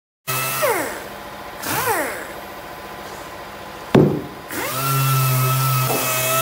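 Air-powered random orbital sander on plywood: it winds down and is briefly revved, then after a sharp knock about four seconds in it spins up and runs steadily with a hiss of air.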